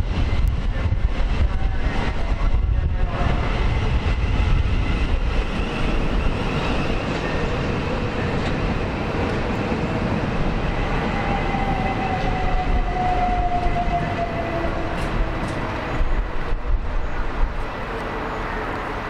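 Electric multiple-unit train running on the line: a steady low rumble of wheels on rails, with a whining tone that slowly falls in pitch about halfway through.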